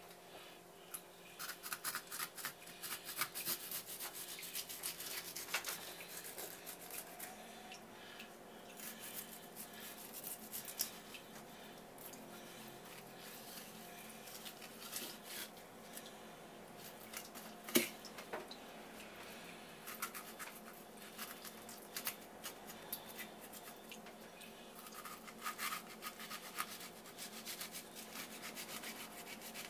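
A knife scraping raw tuna flesh off a tuna collar on a wooden cutting board, as when making negitoro. It comes in runs of quick rasping strokes, with one sharp click a little past the middle and a steady low hum underneath.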